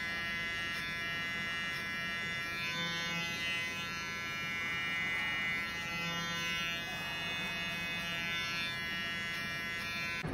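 Cordless electric hair clipper running with a steady buzz, cutting the top hair over a comb.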